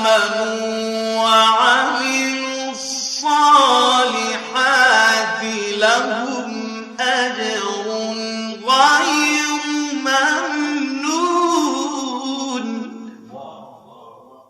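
Male reciter's melodic Quran recitation in long, drawn-out, ornamented notes, phrase after phrase, fading out near the end.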